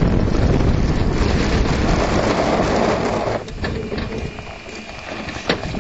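Wind rushing over the microphone and the tyres of an unpowered billy kart rumbling over a dirt road, as a loud even noise. About three seconds in the noise drops sharply as the kart slows, leaving a quieter rumble with a few sharp clicks and crunches from the wheels on loose dirt.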